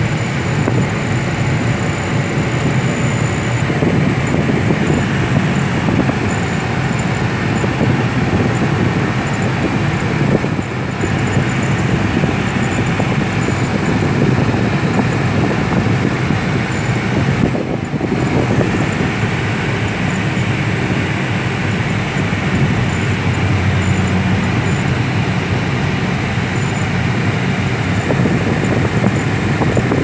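Steady road noise inside a moving car's cabin: tyres, engine and wind making a continuous low rumble, which dips briefly twice.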